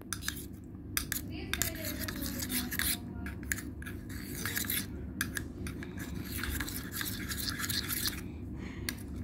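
Metal spoon stirring thick, sticky slime in a steel tumbler, scraping and clicking against the sides in quick, irregular strokes as the glue-and-paint mixture sets into slime.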